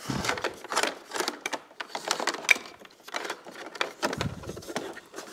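Electrical wire being pulled through a hole in a plastic motorcycle trunk lid, an irregular run of quick scrapes and clicks as the wire and plastic rub and knock.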